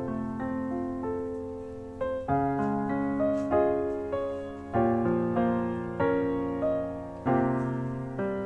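Background piano music: slow chords struck about once a second or two, each fading away.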